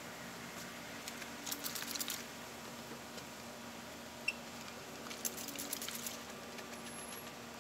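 Trigger spray bottle spritzing water onto a plastic headlight lens, in two runs of quick squirts, about one and a half seconds in and again about five seconds in.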